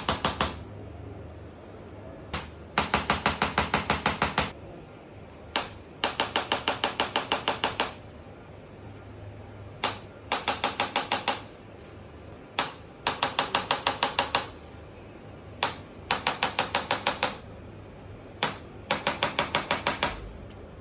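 Chiropractic adjusting gun (ChiroGun) firing in bursts of rapid clicking strikes, about seven a second, during a cervical spine adjustment. There are six bursts, each about a second and a half long and each led by a single click, with short pauses between them.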